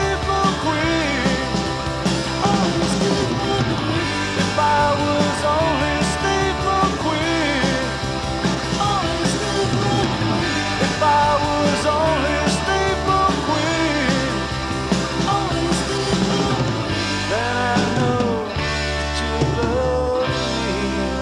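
Rock song played by a guitar band, with electric guitars over bass and drum kit and a lead melody that bends up and down in pitch.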